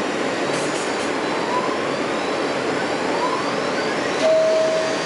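R160B Siemens subway car getting under way: a steady rumble and hiss with a faint whine rising in pitch, and a single steady tone starting near the end.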